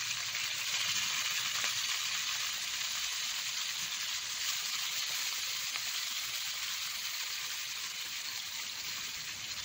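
Tamban fish sizzling in hot oil in a wok: a steady hiss that eases slightly toward the end.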